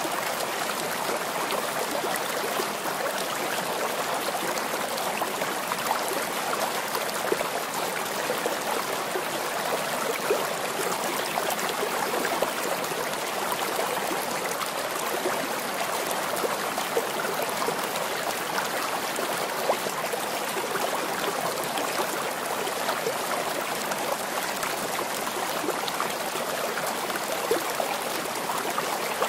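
Steady running water, like a babbling stream, at an even level.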